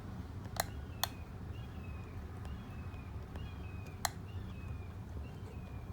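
Three sharp clicks, two close together just after the start and one about four seconds in, from handling tools during harness soldering work. Faint short chirps from a small bird repeat every half second or so over a steady low hum.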